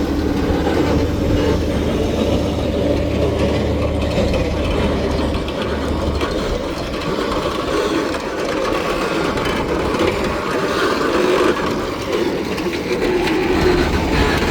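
Construction machinery running with a continuous mechanical rattle. A low engine hum underneath drops away about six seconds in.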